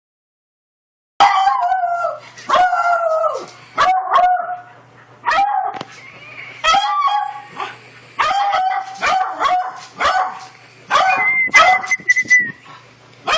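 A dog barking and yelping in a quick, uneven string of short pitched calls, many dropping in pitch at the end, starting about a second in: excited vocalising while chasing a laser pointer's dot.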